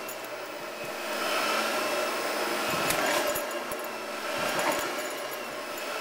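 Oreck XL upright vacuum cleaner running steadily as it is pushed over a braided rug, louder from about a second in, with a few light knocks.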